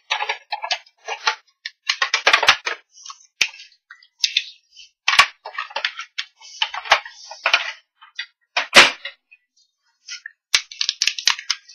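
Sizzix Big Shot die-cutting machine being hand-cranked and its plastic cutting plates handled: an irregular run of sharp cracks and clicks, the loudest a little before the end.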